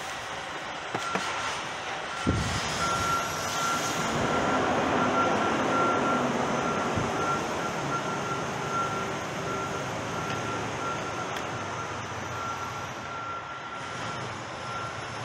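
A vehicle's reversing alarm beeping at one steady pitch, over the rumble of a truck engine that swells and then eases off. There are a couple of light knocks about one and two seconds in.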